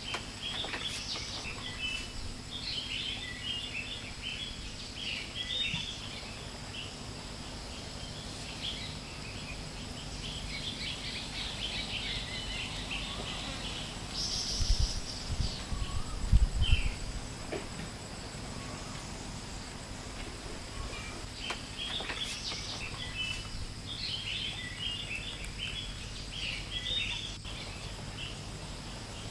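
Birds singing in repeated bursts of short chirps over a steady high insect drone. About halfway through come a few loud low thumps with a brief hiss.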